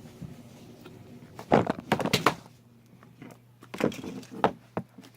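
Handling of slime supplies: a quick cluster of knocks and clatter about a second and a half in, then a few more knocks near the end.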